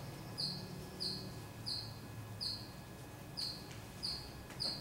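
Faint, short high chirps repeating evenly, about three every two seconds, from a small chirping animal such as a bird or cricket, over a low steady room hum.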